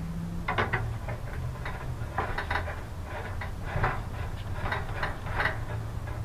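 Small clicks and scrapes of a small green propane cylinder being handled and the plastic cap on its top twisted off, in a quick irregular series, over a low steady hum.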